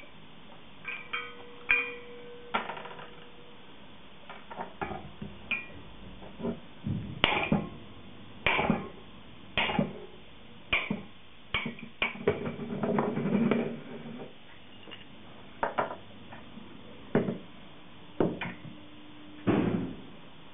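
A steel hammer knocking on the shaft of an IBM BladeCenter H blower motor to drive the rotor out of the stator for a bearing change. About a dozen sharp metallic knocks come roughly a second apart from about a third of the way in. Before them there are a few light clinks of small metal parts with a brief ring.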